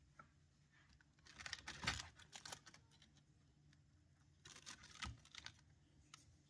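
Two short spells of quick, faint clicking and crackling, one about a second in and another a little past four seconds, against near silence.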